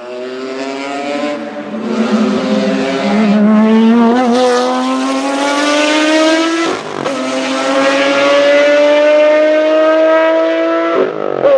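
Maserati MC12 Corsa's V12 engine accelerating hard, its note climbing steadily in pitch. It upshifts twice, about seven seconds in and near the end, each time with a brief drop before the note climbs again.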